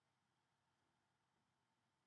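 Near silence: the sound track drops to almost nothing, with no distinct sound.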